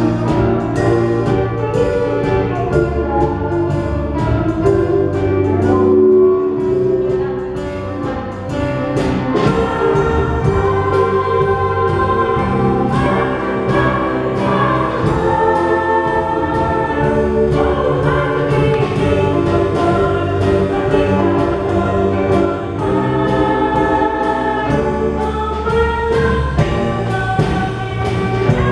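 A group of young, mostly female voices singing a show tune together over instrumental accompaniment with a steady beat.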